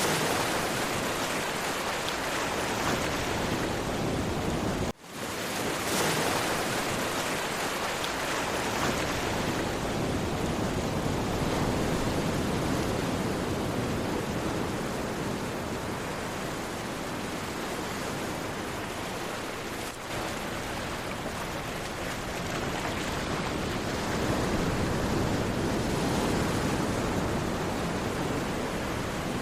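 Sea waves washing continuously on a shore, a steady rush that swells and eases slowly. The sound cuts out for a split second about five seconds in, where the recording is spliced.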